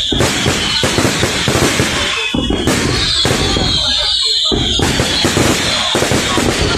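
A dense barrage of fireworks: aerial shells bursting overhead in a rapid, continuous run of bangs, pops and crackles. A high whistling tone runs through it, strongest about three seconds in.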